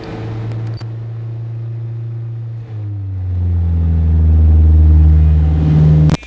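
Ford Ranger pickup's engine idling just after being started. About three seconds in its sound shifts and gets noticeably louder.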